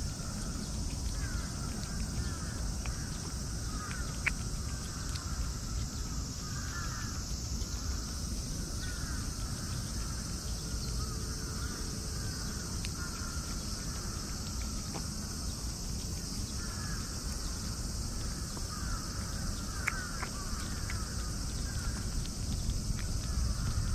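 Crows cawing repeatedly in short bouts over a steady high chirring of insects, with low outdoor rumble beneath.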